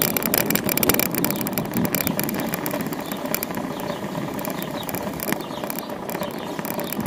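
City street traffic and road noise heard from a bicycle on the move: a steady rumble with frequent faint clicks and rattles.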